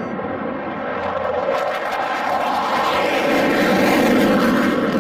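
F-15 fighter jet taking off on afterburner: a rough jet roar that swells over the first few seconds and is loudest about four seconds in.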